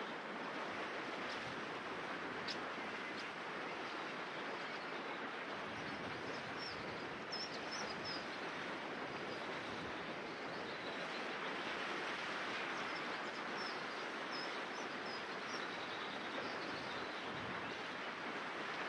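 River water rushing steadily over a stony bed, with faint high chirps of small birds from about seven seconds in.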